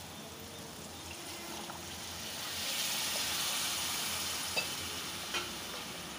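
Water poured into a hot pan of thick pav bhaji masala, the masala sizzling and hissing, louder from about two and a half seconds in, then easing off. A couple of light spatula taps against the pan near the end.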